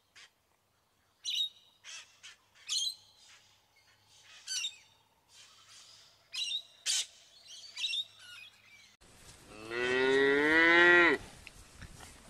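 Birds chirping in short, separate calls for the first nine seconds, then a cow moos once, loud and long (about a second and a half), rising in pitch and dropping at the end.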